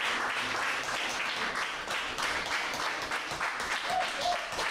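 Guests applauding: many hands clapping steadily.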